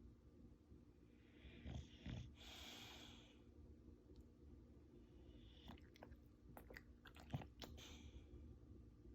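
Faint breathing with a soft breathy huff about two seconds in, then a few small sharp clicks and smacks near the end.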